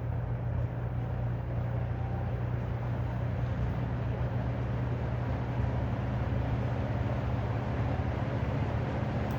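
Late-1970s Kmart/Lakewood P23 20-inch metal-blade box fan running on low speed: a steady motor hum under the rush of air from the blade, growing slightly louder over the first few seconds.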